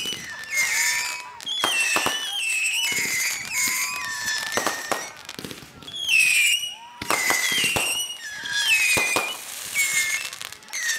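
Fireworks shots going off one after another, with sharp pops and bangs about every second or two. Each is followed by a high, wavering whistle that falls in pitch.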